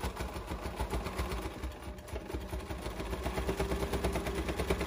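Sewing machine running a straight stitch through a thick stack of fabric layers, the needle going in a quick, even rhythm over the motor's hum, which grows steadier about halfway through. The machine is really pressing through all those layers.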